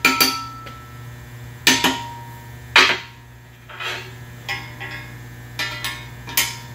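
Small hammer tapping a 316 stainless steel gusset's tabs down into the slots of a rudder plate to seat the tab-and-slot joint. Three sharp metallic strikes with a brief ring come in the first three seconds, followed by several lighter knocks and clinks.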